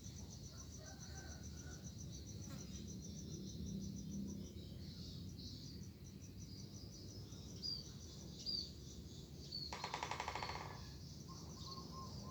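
Outdoor ambience: a rapid high insect trill and a few short bird chirps. About ten seconds in comes a brief rasping, creaking sound lasting about a second. This is the strange sound that the uploader likens to a bamboo swing creaking but is not sure of.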